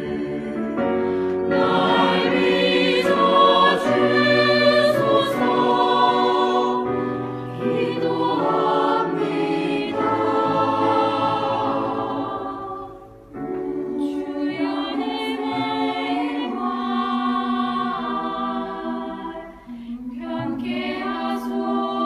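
Four-part youth church choir singing a hymn in sustained chords. The phrases break off briefly twice, about halfway through and near the end.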